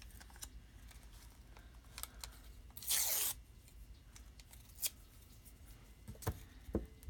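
A small piece of collage paper torn by hand: one short rip about three seconds in, lasting about half a second. Light paper-handling ticks are scattered around it, with two soft knocks near the end.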